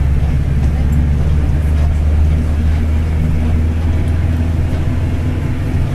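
Mercedes-Benz OF-1721 BlueTec 5 bus's four-cylinder turbodiesel running under way with a steady low drone, together with the driveshaft (cardan) rumbling low.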